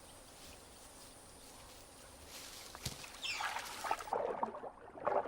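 Spot-necked otters moving and splashing in water, faint at first, then louder and busier from about halfway through.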